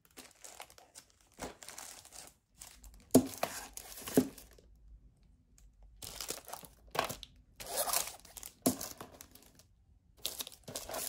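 Shrink-wrapped plastic DVD cases being pushed and shuffled into a row, the cellophane crinkling and the cases knocking against each other in irregular bursts, with a sharp knock about three seconds in and a short pause in the middle.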